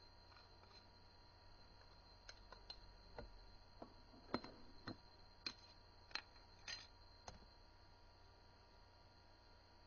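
Faint scattered clicks and light taps, about a dozen in a few seconds and then stopping, over a low steady hum.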